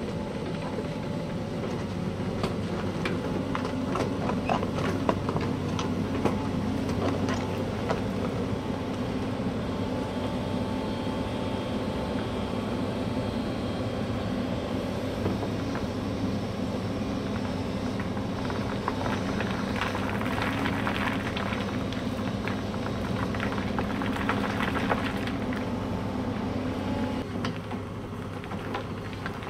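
Volvo excavator's diesel engine running steadily, with scattered knocks and clatter of stones dropping from the bucket into wire gabion baskets.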